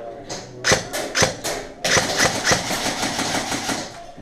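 Airsoft guns firing: a few single shots, then a long rapid burst of fire starting about two seconds in.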